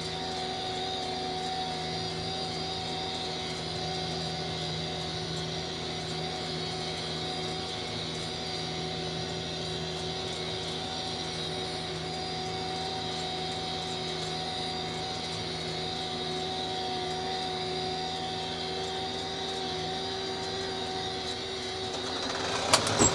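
Tractor engine running steadily, driving a rotary hay tedder through the PTO: an even drone with a constant whine. Near the end the noise rises, with a couple of sharp knocks.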